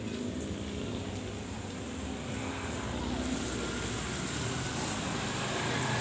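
A motor vehicle's engine running steadily, slowly growing louder.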